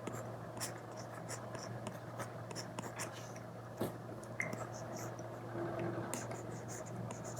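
Apple Pencil Pro tip stroking and tapping on an iPad screen covered with a paper-like film, a steady run of quick scratchy strokes and small ticks, over a faint steady low hum.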